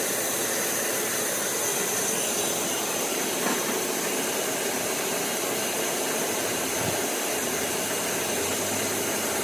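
Large vertical band saw running without cutting, a steady, even rushing noise that does not change in level.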